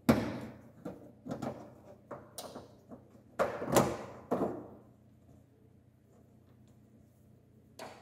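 Hard plastic clicks, scrapes and knocks as a plastic trim tool pries the Fiat Punto's side turn-signal repeater lamp out of its hole in the front fender, a quick run of sharp knocks over the first four and a half seconds, then one more click near the end.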